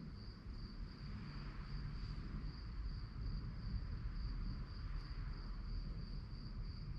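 Crickets chirping in a steady, even pulse about three times a second, over a low rumble.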